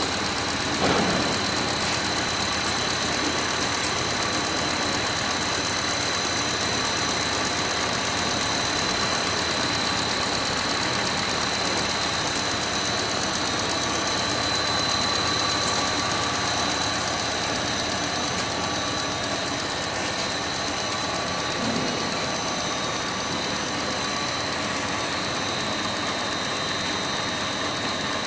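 FTPEG 1000 compound bubble film machine running: a steady mechanical hum with a constant high-pitched whine over it.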